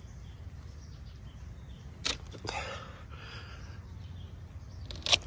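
Hand pruning shears snipping through Brussels sprout leaf stalks: one sharp snip about two seconds in and two quick snips near the end, with leaves rustling in between. A low steady background noise runs underneath.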